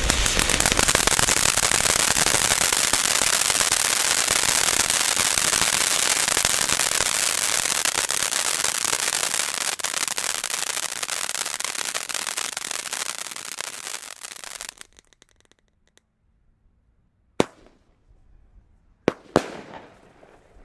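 Nico firework battery's opening fountain spraying sparks with a loud, steady hiss that dies away about fourteen seconds in. After a short near-silence, four sharp bangs follow as the battery's shots fire and burst overhead.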